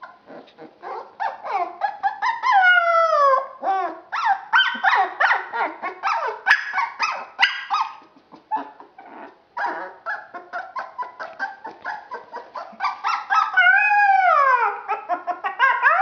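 Young puppy yipping and whining in a rapid string of short, high-pitched cries. Twice it breaks into a drawn-out howl that falls in pitch, about two and a half seconds in and again near the end.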